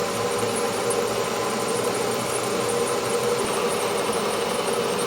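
A machine running steadily with an even, unbroken hum.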